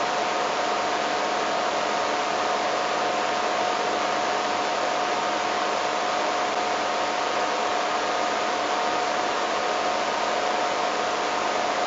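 Steady loud hiss with a constant high whine running through it, unchanging; no animal calls or separate events stand out.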